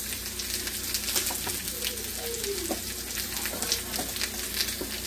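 Steak frying in a pan: a steady sizzle with scattered crackles, over a low steady hum.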